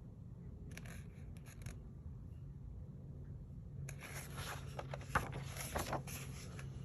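Paper rustling and rubbing as the pages of a soft-cover book are handled and turned: a brief scratchy rustle about a second in, then more sustained rubbing and scraping of paper from about four seconds in.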